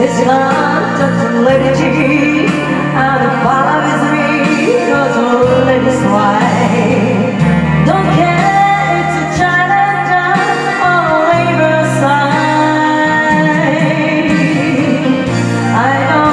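Karaoke: a voice singing a pop song over a backing track with bass and sustained keyboard chords.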